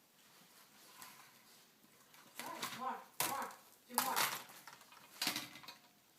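Brief untranscribed vocal sounds from a young child, mixed with a few sharp clatters of small hard objects knocking together, about three and five seconds in.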